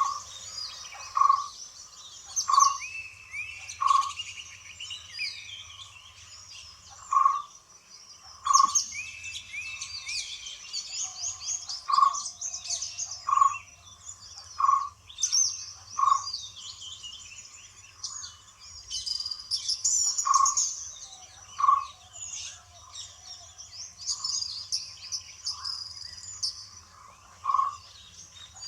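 Forest bird chorus: many birds chirping and whistling together, with one short, lower note repeating about every second and a half, louder than the rest.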